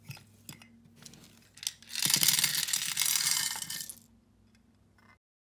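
A few small clicks as a clear plastic storage box's lid is opened and handled, then about two seconds of dense rattling clatter as a boxful of tiny plastic dollhouse accessories (clear glasses, dishes, food) is tipped out onto the table. The sound cuts off abruptly near the end.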